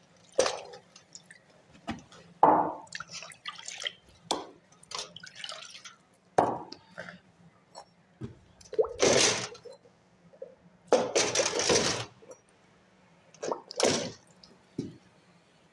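Fireclay bricks being soaked in water: short splashes and drips every few seconds as they are dipped and lifted.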